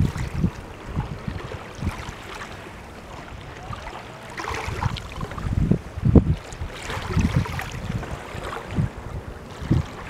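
Wind buffeting the microphone in uneven low gusts, easing about three seconds in and picking up again after five, over the wash of small ripples on a calm sea shore.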